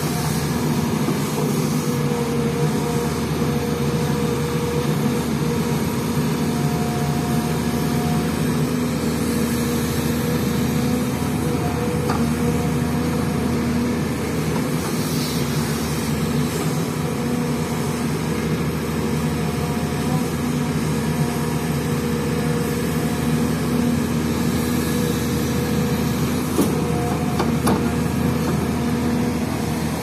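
Crawler excavator's diesel engine running steadily under load as it scoops soil and loads it into a dump truck. A few short knocks come through, one about twelve seconds in and a couple near the end.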